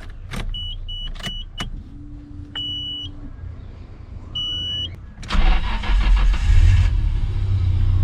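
A few clicks and a series of short electronic beeps, then about five seconds in the Honda S2000's four-cylinder engine starts and runs with a loud, deep rumble. The exhaust is disconnected at a joint, with its bolts and gasket missing, so the engine is leaking exhaust, which the owner calls nasty-sounding.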